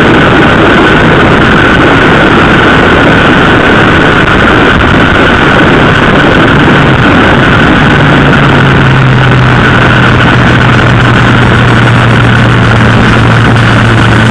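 Honda CB750 motorcycle under way, heard from an onboard camera: loud rushing wind and road noise over the engine note of its air-cooled inline four. About halfway through, the engine note drops lower and then holds steady.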